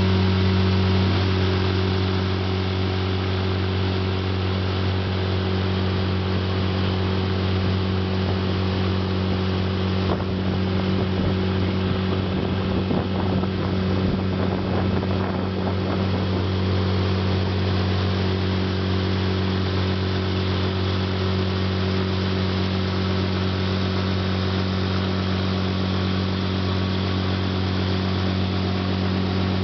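Honda four-stroke outboard motor running steadily at cruising speed, an even engine hum that holds one pitch throughout, over the rush of the boat's wake.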